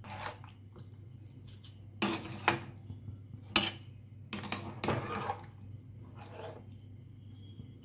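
Metal spoon stirring raw rice, chicken pieces and water in a steel pan, making a handful of separate scrapes and clinks against the pan with wet sloshing between them.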